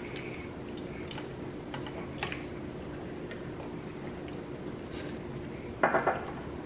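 People eating pho: light clicks of chopsticks and spoons against ceramic bowls, then a loud slurp of noodles about six seconds in.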